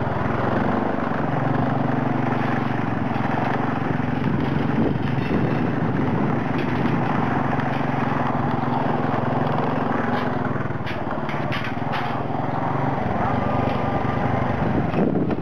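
Small motorcycle engine running steadily at low speed, with scattered clicks and knocks about two-thirds of the way through.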